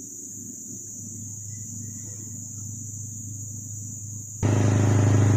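Steady low drone of a riverboat engine, a fuel-transport boat passing on the river, faint at first and jumping suddenly much louder near the end. A constant high buzz of insects runs underneath.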